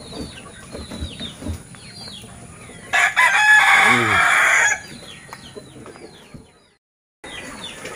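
A rooster crows once, loudly, about three seconds in, the call lasting under two seconds, over a run of short falling bird chirps.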